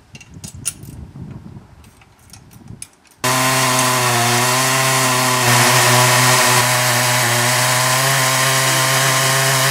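Faint clicks and knocks of handling for about three seconds, then a chainsaw mounted in an Alaskan chainsaw mill starts abruptly at full throttle. It runs loud and steady as it rips lengthwise along a log.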